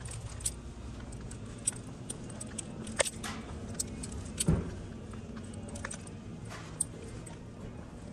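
Scattered light metallic clinks and jingles, like keys jangling, with a few sharper knocks, the loudest about four and a half seconds in, over a low steady hum.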